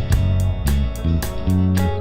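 Funk band playing an instrumental passage: a moving bass line and guitar over a steady drum beat of about four strokes a second.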